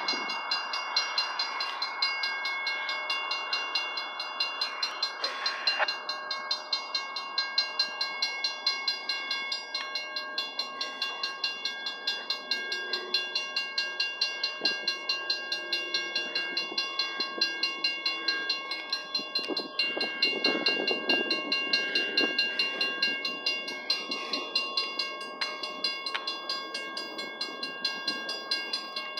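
Railroad grade-crossing warning bell ringing in fast, regular strokes, each a clanging tone at fixed pitches, signalling an approaching train.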